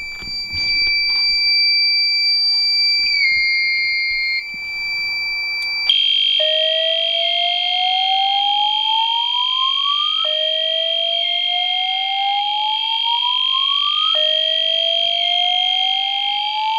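EST fire alarm system sounding in a test. First comes a steady high alarm tone. About six seconds in, a louder steady high tone starts together with a slow whoop, a rising sweep that repeats about every four seconds, three times, the evacuation tone that comes before the voice message.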